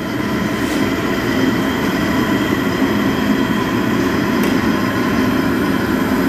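Gas bhatti burner running with a steady rushing roar under a wide kadhai of milk kept on the boil.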